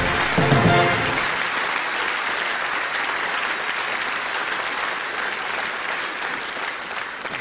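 Live audience applauding, with a short music sting ending about a second in; the clapping then slowly fades.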